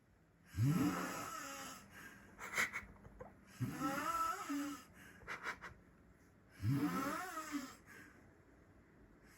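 A person snoring in an unusual way: three long, pitched snores about three seconds apart, each rising in pitch, with a few short clicks between them.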